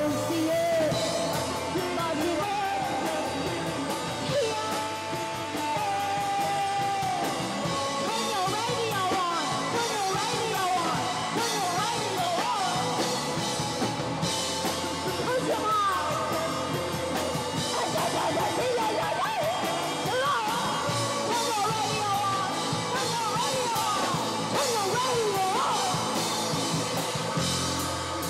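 Live rock band playing a song: a singing voice over electric guitar and drum kit.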